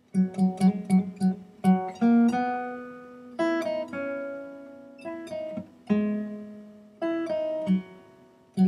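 Acoustic guitar music: it opens with a quick run of repeated plucked notes, then rings on with picked chords that die away between new strokes.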